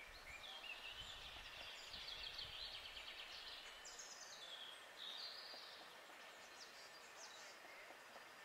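Faint woodland birdsong: small songbirds singing in quick trills and short slurred whistles that slide down and up in pitch, busiest in the first half. A faint low rumble sits under the first few seconds.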